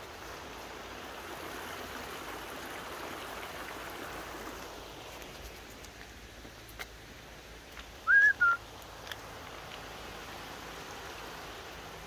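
Steady rush of a fast-flowing, rocky woodland river. About eight seconds in, a loud, short two-note whistle cuts across it, the first note sliding up and the second short and level.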